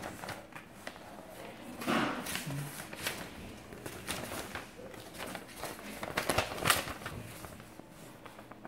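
Paper instruction leaflet being unfolded and handled: crisp rustling and crinkling in several bursts, a strong one about two seconds in and the loudest near the end.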